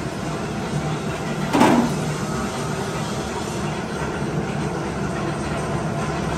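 A steel pan heaped with metal washers is set down on a platform scale, giving one loud clank with a jingle of loose washers about one and a half seconds in. A steady mechanical rumble runs underneath.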